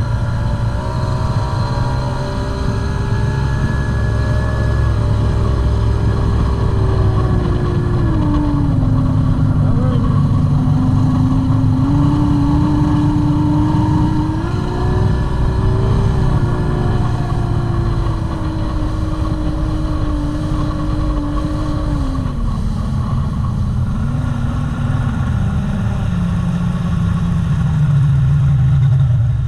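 Outboard drag boat engine running at low speed on the water, its pitch stepping down and up several times as the throttle changes and sinking lower near the end.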